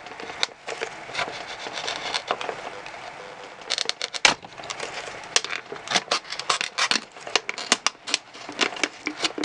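X-Acto knife cutting through a plastic Gatorade bottle along its top rib: a run of irregular crackling clicks and scrapes, coming thicker from about four seconds in.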